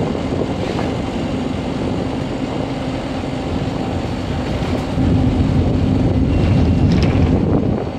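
Optare Solo SR single-deck bus on the move, heard from inside: a steady engine drone with road noise. It grows louder about five seconds in and drops back near the end.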